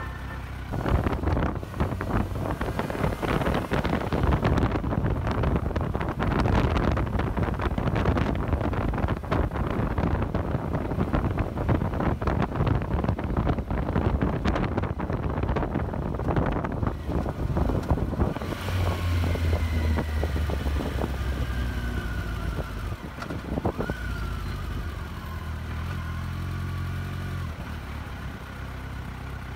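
Kawasaki Versys 1000's inline-four engine under way, mixed with wind buffeting on the microphone. Over the last ten seconds or so the bike slows and stops, and the engine idles steadily.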